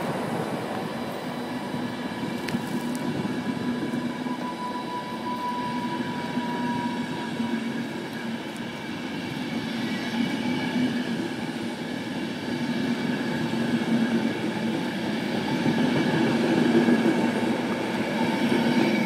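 Intercity passenger coaches' wheels and bogies rolling past close by on the rails with a steady rumble, getting louder near the end. A faint thin squeal comes in about five seconds in.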